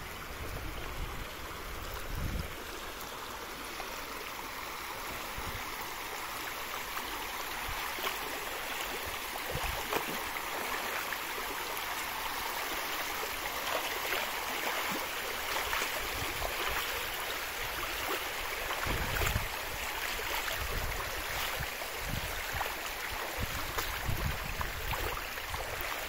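Bzyb river water flowing, a steady even rush with a few dull low thumps.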